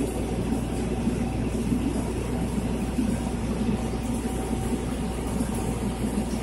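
Aquarium pump running: a steady, unchanging low mechanical hum with a light hiss.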